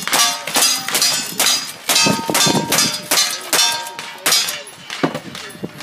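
A rapid string of gunshots, about two a second, each followed by the ringing clang of a steel target being struck.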